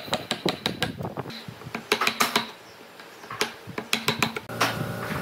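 Quick runs of sharp taps, a hammer driving a wood chisel into hardwood boat timber as a notch is chopped out, about five or six blows a second with a short pause in the middle. A steady mechanical hum starts near the end.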